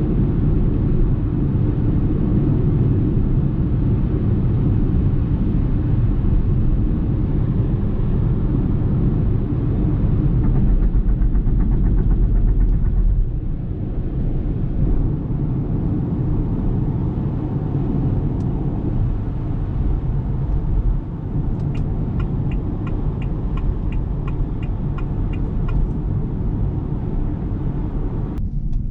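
2023 Ora Good Cat 500 Ultra electric car driving on the road: a steady low rumble of tyre and road noise, with no engine note. Near the end, a regular ticking at about two to three a second joins in.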